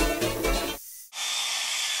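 Bluegrass music with fiddle and banjo stops just under a second in. A moment later a hair dryer cuts in, running with a steady hiss and a thin high whine, blowing hot air onto the VW's engine computer to warm a bad solder joint so the car will start.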